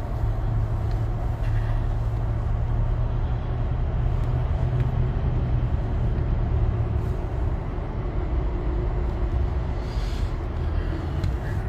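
A car running, heard from inside the cabin as a steady low rumble.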